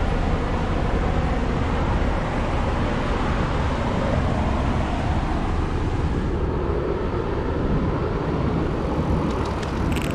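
Steady outdoor noise of traffic on a seaside road mixed with surf, heavy in the low end. A few synthetic electronic tones come in at the very end.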